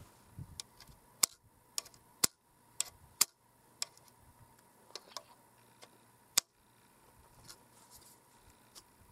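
Sharp metallic clicks and clacks of a homemade reverse-cycle pump-action shotgun's action being worked by hand, with shotgun shells moving in its rim-gripping stripper magazine. About a dozen irregular clicks, a few of them much louder than the rest.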